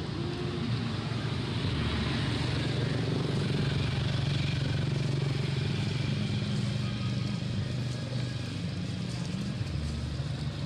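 A motor engine running steadily in the background, a low hum that swells slightly in the middle and eases off again.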